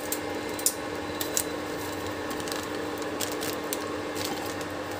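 Steady hum of an induction cooktop running under a simmering pot, with a few faint light clicks as chaat masala is sprinkled in.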